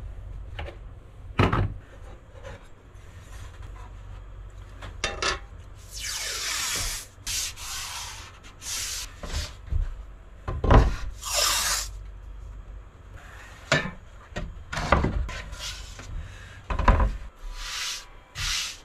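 Masking tape being pulled off the roll in several long zipping strokes and pressed along the edges of a wooden panel board. Rubbing from the board being handled, with a couple of knocks on the bench.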